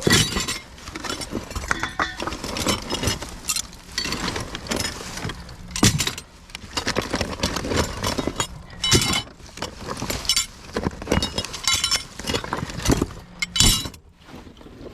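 Small pieces of scrap metal hardware being picked up and tossed together, clanking and clinking in a run of irregular knocks, with louder clanks at the start, about six and nine seconds in, and near the end.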